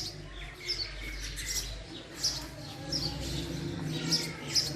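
Male house sparrow chirping: a run of short, sharp chirps, about two a second, over a low background hum.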